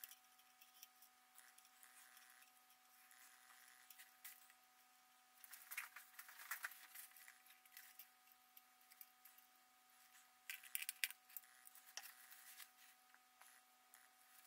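Near silence with a faint steady hum, broken by faint clicks and rustles of a quartz wall clock's hands and MDF face being handled and set down, in two short clusters about five and ten seconds in.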